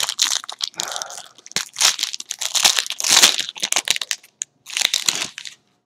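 Plastic packaging crinkling and crackling in irregular bursts as it is handled and pulled apart, stopping just before the end.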